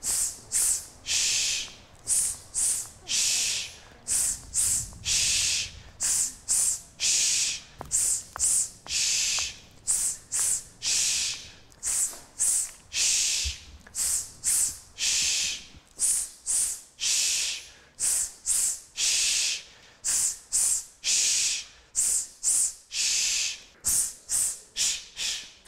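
Voices hissing in rhythm: a run of sharp 'sss' and 'tss' breaths, short and long, about two a second and without any sung pitch, from a choir keeping a beat with its breath.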